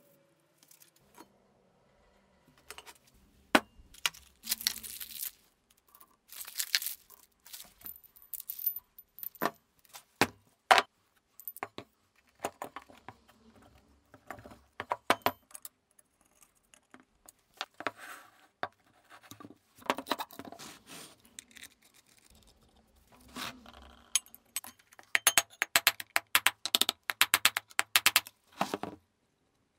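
Metal clanks, knocks and scrapes of electric motor parts (cast end bells, rotor and stator) being handled and fitted together on a wooden bench, ending in a quick run of rapid light metallic clicks.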